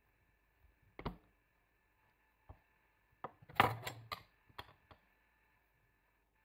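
Knife and cake server tapping and scraping against a glass plate as a slice of cheesecake is cut and lifted out: a few sharp clicks, with the loudest burst of scrapes and taps about three and a half seconds in.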